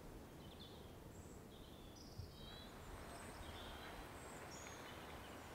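Faint ambience of small birds chirping in short, high calls over a low, steady background rumble.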